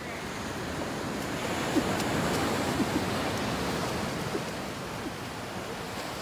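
Ocean surf breaking and washing up a sandy beach, swelling about a second and a half in and easing off toward the end.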